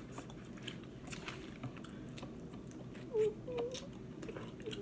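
Close-up eating sounds of a seafood meal: chewing with scattered small clicks and cracks of food and shells. A person's voice gives a short hum a little past three seconds in.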